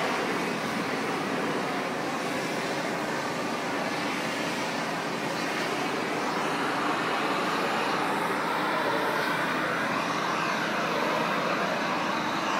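Pressure washer running: a steady, unbroken rush of noise.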